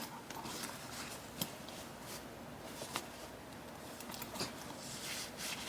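Quiet rustling and handling of packaging as a handbag is lifted out of its box, with a few soft clicks.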